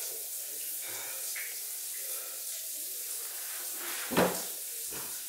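A sharp knock about four seconds in, then a softer one under a second later, over a steady hiss.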